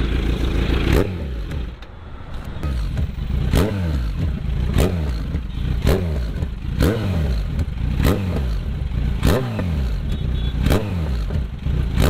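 Kawasaki Z900 inline-four with a full SC Project exhaust. It runs at high revs for about a second, then the throttle is blipped about ten times at an even pace, roughly once a second. Each blip rises sharply and the revs die away before the next.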